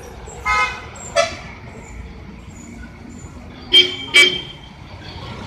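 Vehicle horns tooting at a hairpin bend: a short toot about half a second in, a brief one at about a second, then two short loud toots in quick succession around four seconds in. A heavy vehicle engine rumbles steadily underneath.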